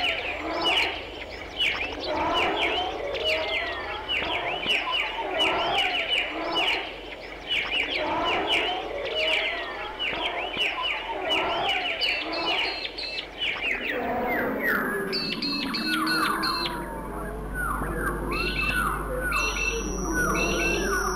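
Dense, rapidly repeated bird-like chirping, many calls overlapping. About two-thirds of the way through the texture changes and a steady high tone comes in near the end.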